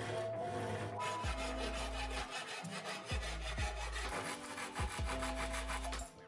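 Handsaw cutting through a cedar board, its teeth rasping through the wood in quick, even back-and-forth strokes that stop just before the end.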